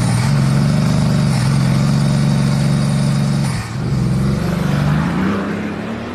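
An engine running at high revs, dipping briefly about three and a half seconds in, then rising in pitch again as it slowly fades.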